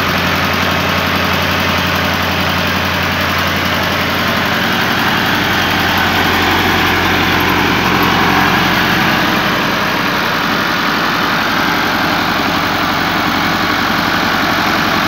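Massey Ferguson 265 tractor's diesel engine running steadily after a self-start, with the throttle opened a little.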